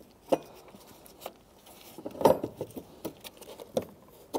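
Scattered clicks and knocks of the fuel pump module and its lock ring being handled and pressed down into the fuel tank opening, about one a second, with the loudest cluster a little past halfway.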